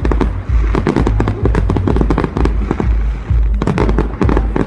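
Fireworks bursting in quick succession: many sharp bangs and crackles overlapping over a continuous low rumble, with a dense flurry of bangs near the end.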